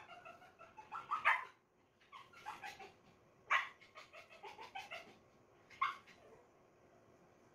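Dog barking in short bursts: four sharper barks, about a second in, at three and a half seconds and near six seconds, with softer barks between. It stops in the last second or so.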